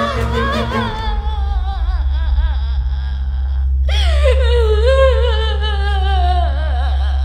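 Film score: a mournful wordless vocal line over a steady low drone. The voice wavers in pitch and falls through each phrase, and a new phrase starts about four seconds in.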